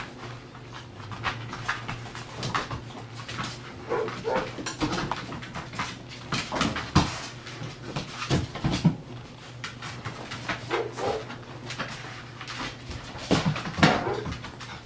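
Llewellin setter puppies playing: a few short whimpers and yips scattered through, with many quick clicks and scuffles as they move and tussle on the tile floor.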